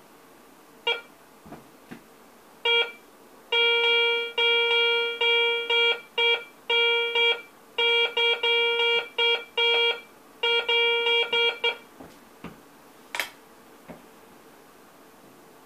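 Garrett ACE 350 metal detector giving its target tone as a coin is waved over the search coil: a long run of beeps at one pitch, some short and some held for about half a second. The beeping stops about three-quarters of the way through, followed by a single short click.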